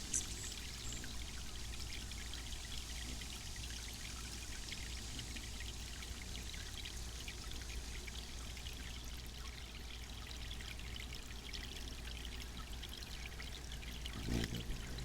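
Garden water fountain splashing and trickling steadily, over a steady low hum.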